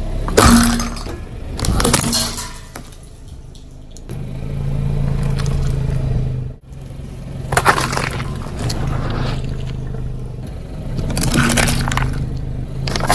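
A car tyre rolling over and crushing plastic cups of water beads, food and other soft things: sharp crunches and wet squelches, loudest about half a second in, around two seconds, near eight seconds and near eleven and a half seconds. A low steady hum lies under the middle stretch.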